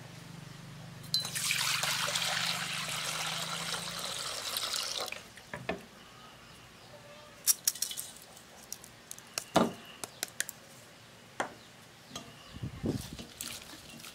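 Water pouring into a stainless steel bowl for about four seconds, then stopping, followed by scattered sharp knocks and clinks as the bowl and cups are handled.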